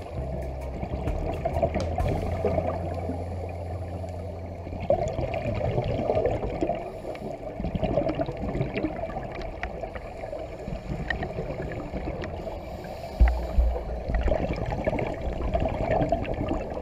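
Muffled underwater sound picked up through a GoPro's waterproof housing: a steady wash of water noise with many small scattered clicks and crackles. A low hum runs through roughly the first four seconds, and a couple of low thumps come about thirteen seconds in.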